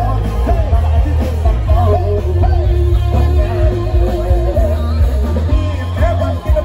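Live band music with a singer, played loud through a concert PA. A heavy, steady bass runs under a wavering sung melody.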